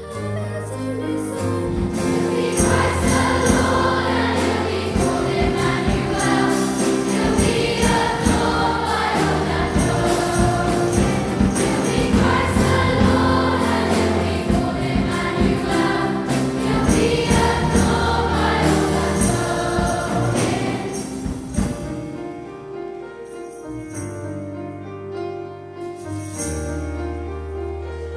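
A large children's choir singing a Christmas song with band accompaniment of piano and drum kit, driven by a steady beat of bright percussion. About 21 seconds in the full sound falls away to quieter, softer accompaniment.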